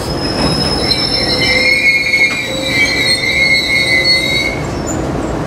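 Metrolink bilevel commuter train's steel wheels squealing as it slows to a stop, over the low rumble of the train. Several high, wavering squeals overlap and die away about four and a half seconds in.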